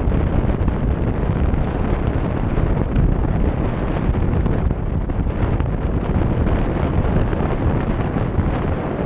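Wind rushing and buffeting over the microphone of a camera on a moving motorcycle at road speed, a steady low rumble of wind, engine and tyres blended together.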